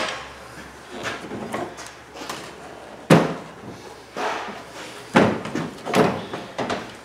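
Plastic clunks and knocks as a Toyota RAV4 headlight assembly is worked loose and pulled out of the car's front end, with sharper knocks about three, five and six seconds in and lighter handling sounds between.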